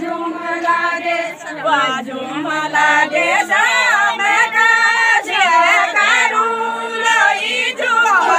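A group of women singing a Kumaoni jhora folk song together as they dance, voices in chorus without instruments.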